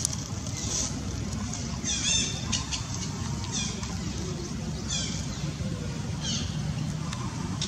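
Infant long-tailed macaque giving short high-pitched squeals, four falling calls about a second and a half apart, over a steady low background rumble.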